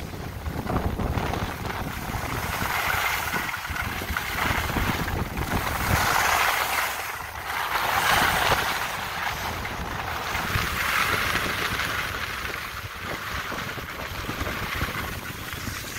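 Wind rumbling on the microphone while skiing at speed, with the hiss of skis sliding on groomed snow swelling and fading every few seconds.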